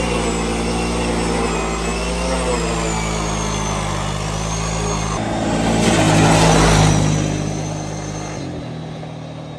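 Kawasaki Prairie ATV's V-twin engine revving in a burnout, its rear tires spinning and squealing on the pavement. About five seconds in it surges loudest as the quad pulls away, then fades into the distance.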